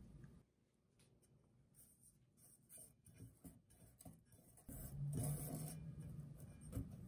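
Fingers rubbing a piece of butter around the inside of a metal cake tin to grease it: soft scuffing and rubbing with small ticks, growing louder about five seconds in.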